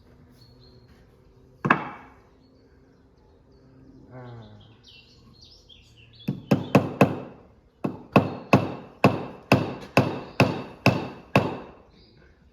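A claw hammer drives a copper pin into wood. There is a single blow about two seconds in, then about a dozen sharp taps in the second half, a quick cluster followed by a steady run of about two a second.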